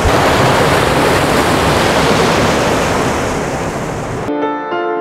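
Rushing water of a shallow mountain river running over rocks, a steady hiss. It cuts off abruptly about four seconds in, and piano music begins.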